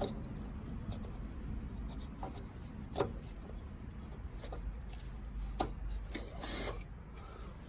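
A few light knocks and a brief scraping rub as body mount parts are handled and pushed into place, over a low steady hum.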